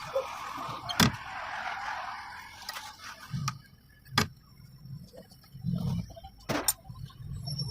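A few sharp clicks and knocks at irregular intervals, two of them close together near the end, over a hiss that fades out in the first few seconds.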